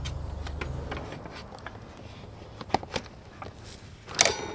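Clicks and knocks from a loaded bicycle and the gear on its rear rack being handled. Near the end comes a sharp metallic clank that rings briefly. A low steady hum stops about a second in.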